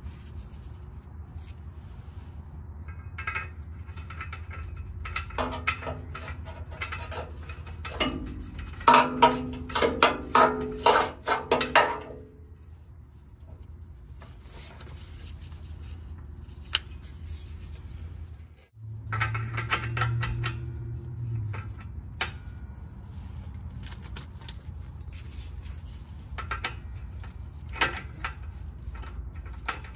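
Metal tools clinking and clattering in irregular clusters while the new downstream oxygen sensor is fitted with a socket, over a steady low hum.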